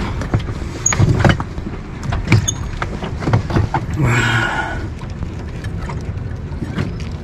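Scattered knocks and clicks of lobster-fishing gear and catch being handled on a small boat's deck, with a brief rustling scrape about four seconds in, over a steady low rumble.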